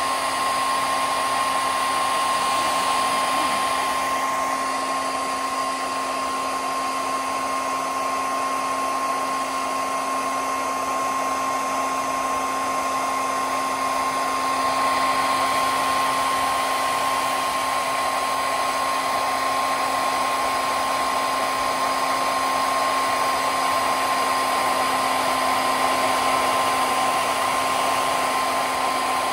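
Hair dryer running steadily on its high setting: a constant whine over the rush of blown air, with no change in speed.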